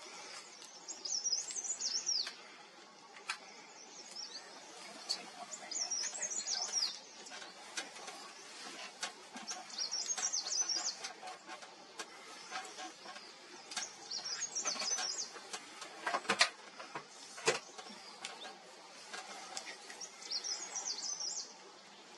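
A small songbird singing short, high twittering phrases, five of them, about one every four to five seconds, over faint outdoor background. Scattered light clicks run through it, with two louder knocks about two thirds of the way through.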